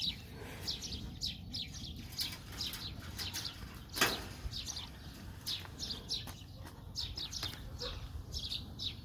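Small birds chirping continuously in quick, short, high notes, with one sharp knock about four seconds in.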